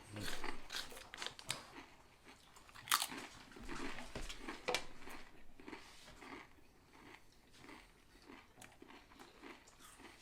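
Close-up mouth sounds of a person eating a sub sandwich: biting, crunching and wet chewing with mouth clicks, louder in the first half and softer towards the end.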